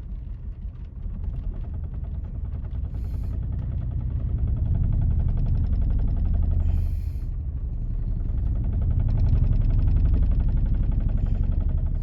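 Seat Leon petrol engine idling roughly with a very heavy misfire: a dead cylinder makes it run lumpy. The rumble swells louder in the middle and again near the end, with two short hisses along the way.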